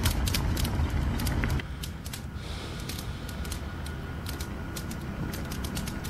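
Scattered irregular sharp clicks and ticks over a low rumble; the rumble drops away about one and a half seconds in, leaving the clicks over a quieter background.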